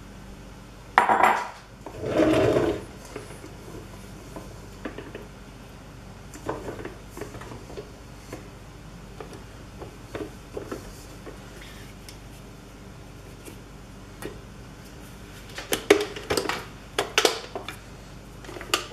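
Metal beaters clicking and clattering as they are handled and fitted into a Sunbeam stand mixer over a stainless steel bowl. There is a sharp knock about a second in and a louder clatter just after it. A quick run of clicks comes near the end as the beaters are lowered into the bowl.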